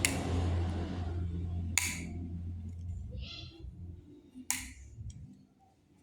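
A small electric motor running with a steady low hum that stops about three seconds in, with two sharp clicks, one before it stops and one after.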